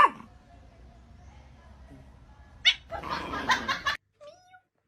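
Domestic cat meowing and yowling: a drawn-out call right at the start and a short meow near the end. About three seconds in there is a loud, rough burst that cuts off suddenly at four seconds.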